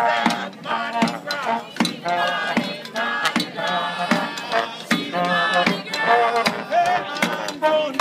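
Street brass band playing a lively tune: saxophone and trumpets carrying the melody over a steady bass drum beat, with voices of the players joining in.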